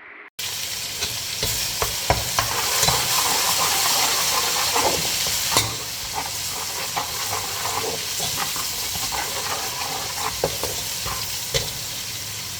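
Onions and ginger-garlic paste frying in hot ghee, sizzling steadily, while a spoon stirs them, scraping and clicking against the pot. The sizzle cuts in about half a second in and eases slightly about halfway through.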